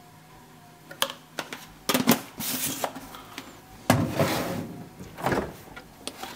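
Kitchen handling sounds: a few sharp clicks and knocks and short rustling swishes, then a tall door being pulled open about four seconds in, likely the fridge.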